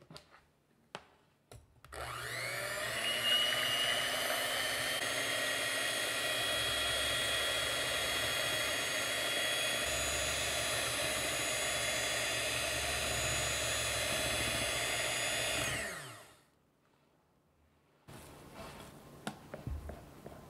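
Electric hand mixer whipping heavy cream with sugar in a glass bowl. It starts about two seconds in, rising in pitch as it comes up to speed, runs steadily, then winds down. Near the end there are faint soft sounds of a silicone spatula working the whipped cream.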